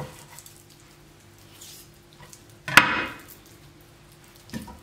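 Quiet knife-and-hand work taking the breast meat off a raw chicken carcass on a wooden chopping board, with one sharp crack a little past halfway, the loudest sound.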